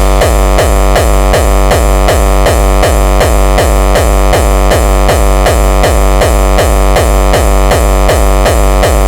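Electronic hardcore dance music: a heavy kick drum pounds about three times a second under dense synthesizer layers, loud and unbroken.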